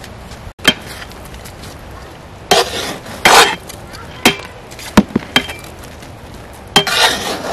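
A long metal ladle scraping and knocking against a large metal cooking pot as cooked biryani rice is scooped and turned. It makes a few short scrapes and several sharp clinks, with the longest scrape near the end.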